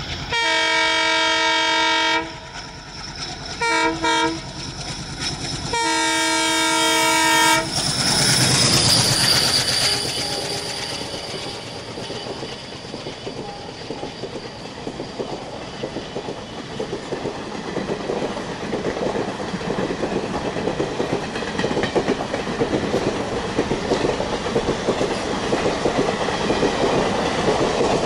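ALCO WDG3A diesel locomotive sounding its horn three times, long, short, long, as it approaches, then running past with its engine chugging. The coaches follow with a steady clickety-clack over the rail joints, growing louder near the end.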